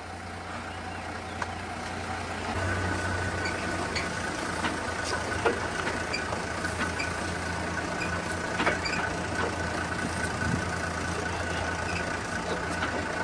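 A vehicle engine idling steadily, a low hum that gets a little louder about two and a half seconds in, with a few faint clicks over it.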